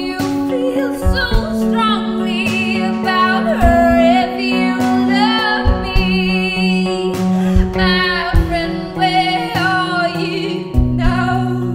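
A woman singing a song over guitar accompaniment, with held bass notes and regular drum hits.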